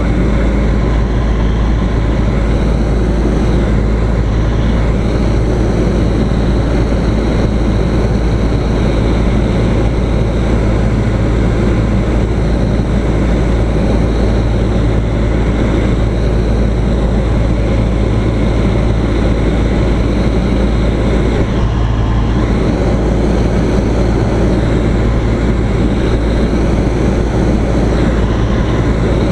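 Single-engine propeller airplane's engine and propeller running steadily in flight, a loud constant drone heard from inside the cockpit.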